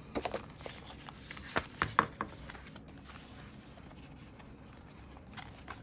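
Album contents handled during an unboxing: a run of light clicks and rustles over the first two seconds or so, the sharpest about two seconds in, then quieter handling.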